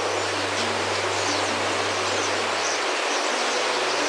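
Steady rushing noise of a large flock of European starlings in flight, with faint high chirps scattered through it.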